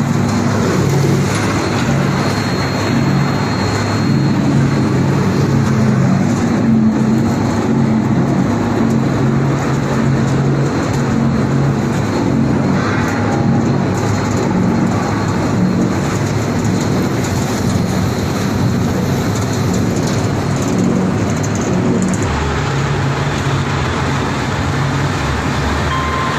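Plastic film recycling washing line running: a loud, steady machinery din with a low hum and a hiss like rushing water. The low hum shifts about 22 seconds in.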